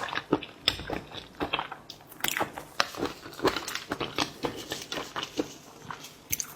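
A person eating a tiger prawn close to the microphone: chewing and biting, with many irregular wet clicks and crunches.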